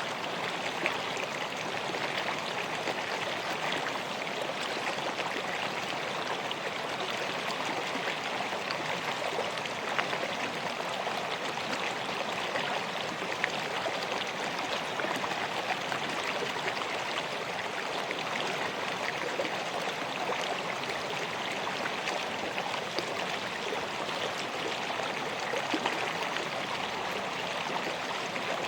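River water flowing over stones: a steady rushing and babbling, with small splashes here and there.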